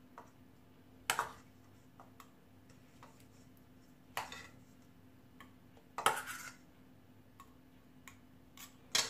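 A metal spoon clinking against a stainless steel bowl while diced tomatoes are scooped out: a handful of separate clinks a few seconds apart.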